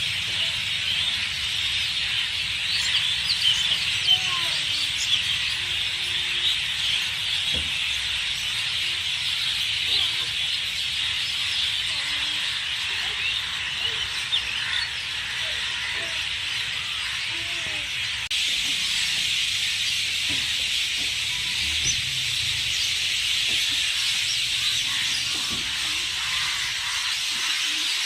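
Many birds chirping and twittering at once in a dense, steady chorus.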